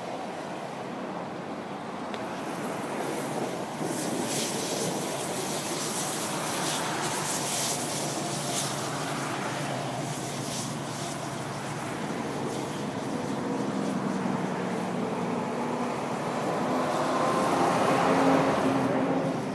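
Highway traffic noise, with sharp crackling clicks through the middle and a vehicle passing close by, swelling to its loudest near the end.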